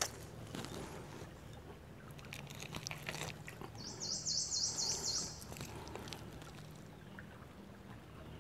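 Creek water splashing and trickling as a skinned snake is rinsed in it by hand, with scattered small knocks. About four seconds in, a high trill of about eight quick rising chirps lasts a second and a half.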